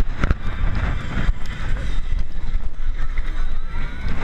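Wind buffeting the microphone on a moving steel roller coaster train, over the low, continuous rumble of its wheels on the track.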